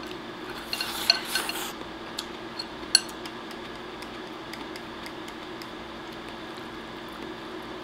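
Chopsticks scraping and clicking against a ceramic rice bowl while egg-topped rice is scooped up: a scratchy stretch with a couple of sharp clicks in the first three seconds, then scattered light ticks.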